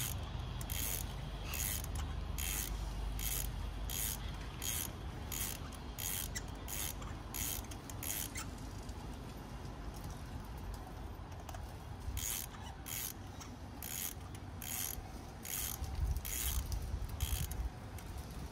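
Ratchet wrench clicking in short bursts as it is swung back and forth on a spark plug socket, loosening a spark plug. About three strokes every two seconds, with a pause of a few seconds about halfway through.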